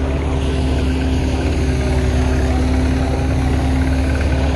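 Tractor engine running steadily, a constant low drone with a steady hum over it.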